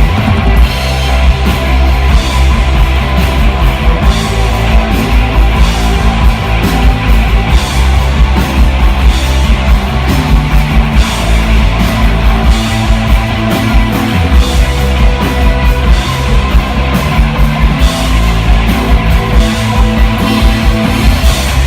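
Live rock band playing loudly: electric guitar, bass guitar and drum kit, with sustained low bass notes under a steady drum beat.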